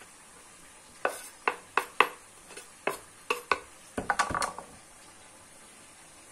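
Kitchen knife knocking and scraping on a wooden cutting board while clearing cut onion off it. About eight sharp knocks come in the first three and a half seconds, then a quicker cluster of knocks and scraping around four seconds in, and after that only a low background.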